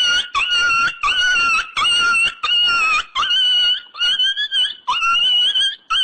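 Comedy sound effect: a rapid string of about ten short, high-pitched squealing tones, roughly two a second, each with a small bend in pitch.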